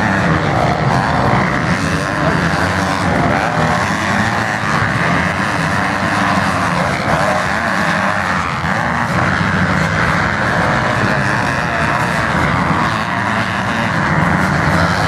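A field of motocross dirt bikes' engines running together, loud and steady.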